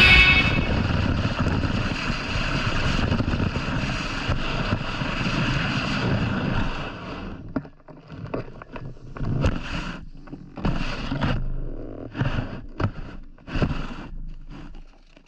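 Snowboard sliding and scraping over snow, with wind on the microphone: a steady rush for about seven seconds, then broken into separate short scrapes with gaps between them.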